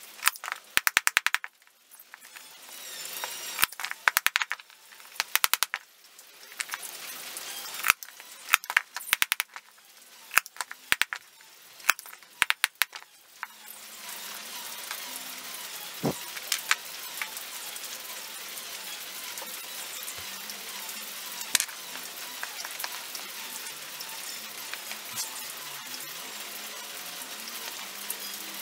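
Bursts of sharp clicks and taps, some in quick runs, from a hand tool working on the small wooden parts of a toy crane, through roughly the first half. After that a steady hiss with only an occasional tick as the pieces are handled.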